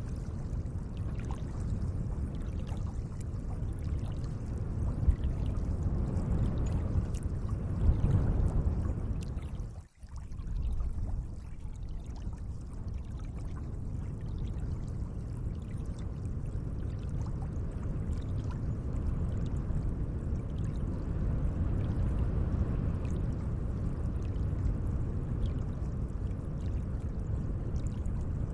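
Gentle lake water: a steady, low wash of moving water that drops out for an instant about ten seconds in.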